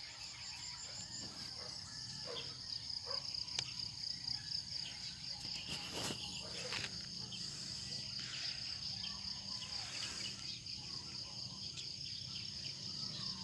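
Insects trilling in a steady, high, finely pulsed chorus, with a few faint taps.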